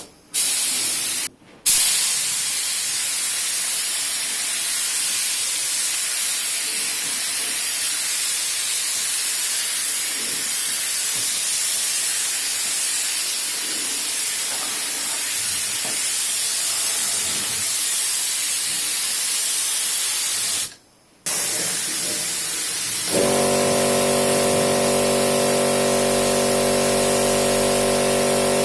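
Steady hiss of compressed air from a spray gun laying down epoxy primer, broken by a few short cuts. About 23 seconds in, a motor starts and runs with a steady hum under the hiss.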